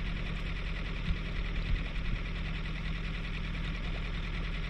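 Outboard motor running steadily at slow trolling speed, with a few brief knocks between one and two seconds in.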